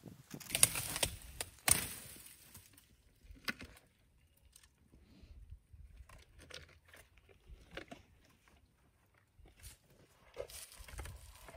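African elephant feeding on a dry shrub, snapping and tearing branches with its trunk: a burst of loud cracking and rustling in the first two seconds, then scattered snaps and crunches, with more crackling near the end.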